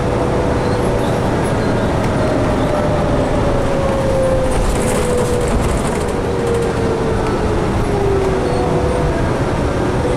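Inside a 2011 New Flyer D60LFR articulated diesel bus under way: the Cummins ISL straight-six and Allison B500R automatic transmission running steadily under road and cabin noise. A thin driveline whine slowly falls in pitch through the middle.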